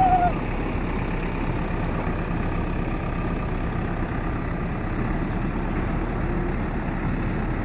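Diesel engine of a JCB backhoe loader running steadily under load as it tows a lorry on a tow bar. A brief pitched call sounds at the very start.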